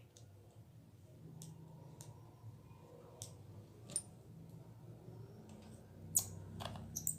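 Spinning fishing reel being cranked by hand: a faint, steady low whir of its gears, with scattered sharp clicks, as the repaired reel's main shaft moves up and down.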